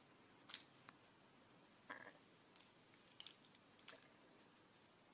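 Faint, scattered crackles and clicks from the crinkly wrapper of a hard candy as a cat mouths it, with a small cluster of crackles in the second half.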